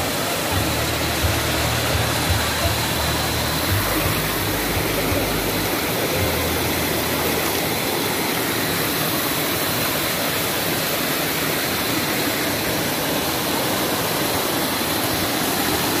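Small waterfall spilling over rocks into a stream pool: a steady, dense rush of splashing water, with a low rumble during the first few seconds.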